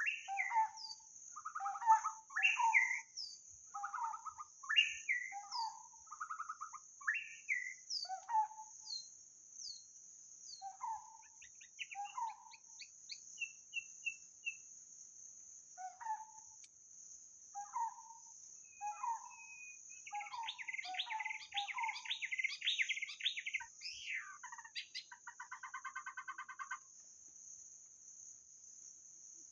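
White-rumped shama singing: a run of varied, fluting whistled phrases. About two-thirds of the way through it breaks into a dense burst of chattering notes, then a short buzzy rattle. A steady high-pitched hiss runs underneath.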